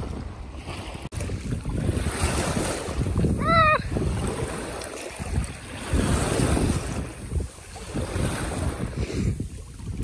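Small waves washing over shoreline stones and around boots in shallow water, with wind buffeting the microphone. A brief wavering high cry rings out about a third of the way in.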